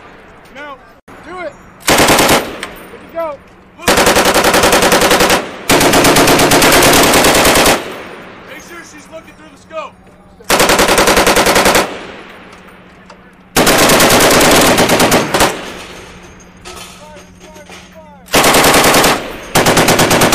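Belt-fed machine gun firing in bursts of rapid shots, about six in all, the longest running close to four seconds, with brief pauses between them. Short metallic clinks ring out in the pauses.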